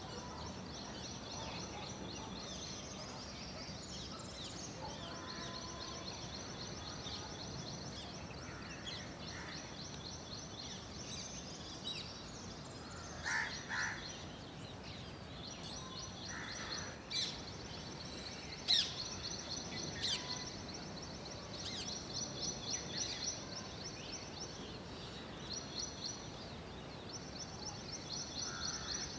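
Birds chirping and calling in a dawn chorus, over a continuous high, fast trill that stops and starts several times. A pair of short lower calls comes about halfway through, and sharper chirps follow a few seconds later.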